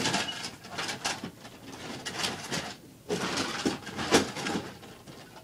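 Rattling, clattering handling noise in two stretches, with a short break about three seconds in.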